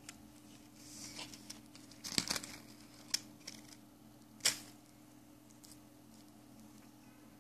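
Handling sounds of matches and a metal match gun: soft rustling and a series of small sharp clicks as a match is taken from a matchbox and loaded into the steel toy pistol, the loudest click about halfway through.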